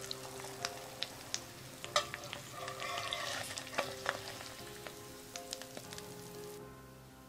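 An egg frying in oil in a frying pan, sizzling, loudest about halfway through, with sharp clicks and scrapes of a metal slotted spatula sliding under the egg and lifting it out.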